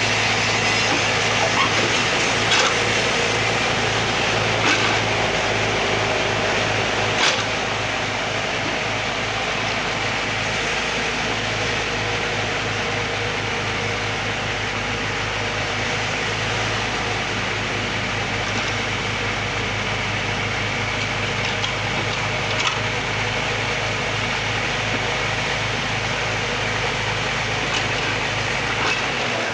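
Backhoe's diesel engine running steadily while digging, with a few short sharp knocks, most of them in the first several seconds.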